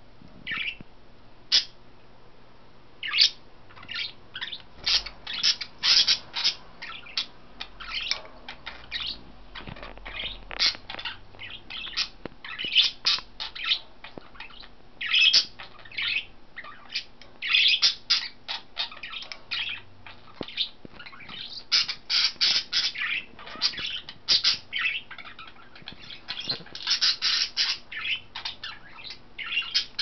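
Pet budgerigars chirping and chattering: many short, sharp calls in quick clusters, sparse at first and busier after a few seconds.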